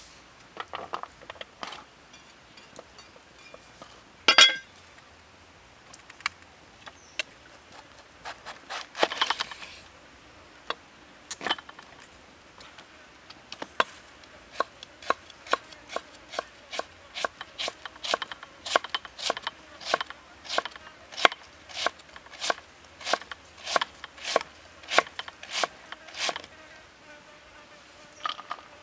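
Kitchen knife slicing a red cabbage on a wooden chopping block. It starts with scattered knocks, one loud knock about four seconds in, then a steady run of sharp chops about two or three a second from about halfway until near the end.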